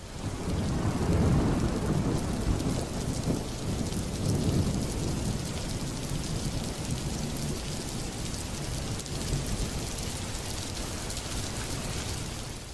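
Rain falling steadily with low rolling thunder. The rumble is strongest in the first few seconds, then gives way to a steady rain hiss that fades out at the end.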